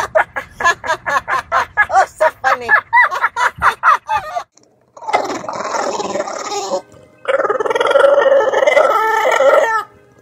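A dog makes a rapid string of short, pitched whining yips, about five a second, for about four seconds. After a short break, a white English bulldog makes long, drawn-out grumbling vocal sounds with its mouth open, in two stretches.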